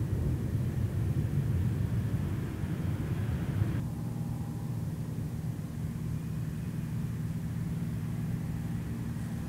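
Jet airliner engines rumbling, then an abrupt change about four seconds in to a steadier engine hum with a few steady low tones.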